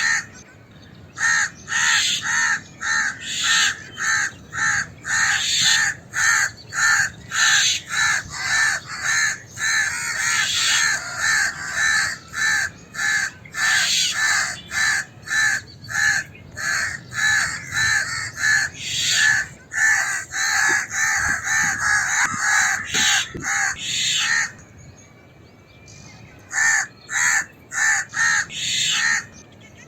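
House crows and mynas giving alarm calls: a rapid run of harsh caws, about two or three a second, that breaks off for about two seconds near the end and then starts again.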